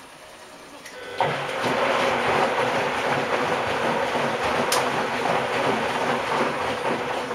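Miele W 720 washing machine starting its wash program. A loud, steady rush of water filling through the inlet valve and detergent drawer starts suddenly about a second in, with a single click near the middle.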